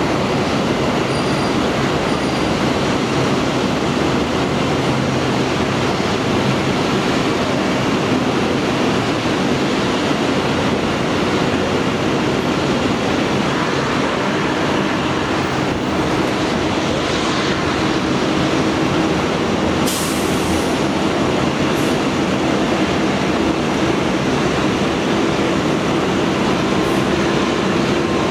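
Steady, loud roar of jet aircraft engines running on an airport apron, with a faint hum that grows a little stronger near the end.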